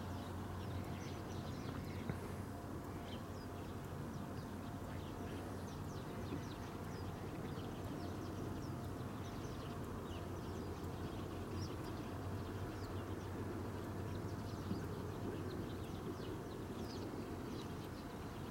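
Scattered short, high bird chirps over a steady low hum of background noise, with no train yet passing.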